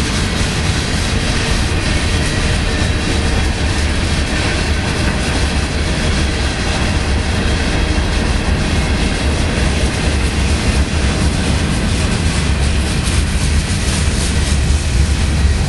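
Freight cars of a Union Pacific manifest train rolling past: a steady, loud rumble of steel wheels on rail.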